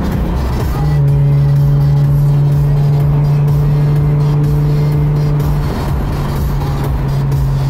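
Inside a car's cabin while driving uphill: steady engine and road rumble with a low, even hum that grows stronger about a second in and eases near six seconds.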